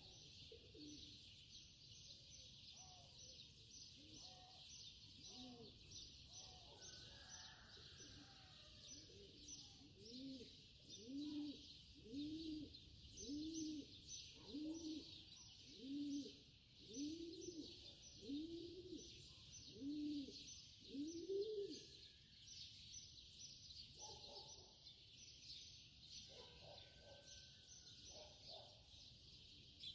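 Faint birdsong: a steady high chorus of chirping, with a bird giving about a dozen low cooing hoots, roughly one a second, from about ten seconds in until just past twenty seconds.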